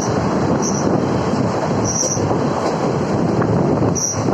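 A train running through a railway station: a loud, steady rumble of the carriages on the track, with a few brief high squeaks at irregular intervals.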